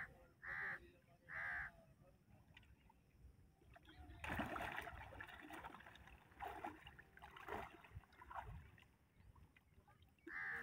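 A crow caws three times in quick succession, and once more at the very end. From about four seconds in, river water splashes and churns for several seconds, with a couple of sharper splashes, as people in waist-deep water wrestle a large fish.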